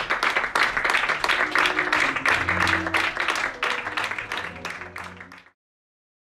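Audience applauding, with music playing underneath; it fades and cuts off to silence about five and a half seconds in.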